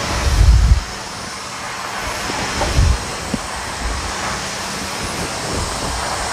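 Hoover Steam Complete Pet steam cleaning machine running on tile floor: a steady hum and hiss, with a few dull low thumps, the loudest about half a second in and another near three seconds in.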